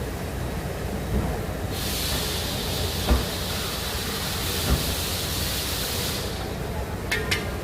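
A steady hiss lasting about four and a half seconds over a low workshop rumble, with a few dull knocks and a couple of sharp clicks near the end.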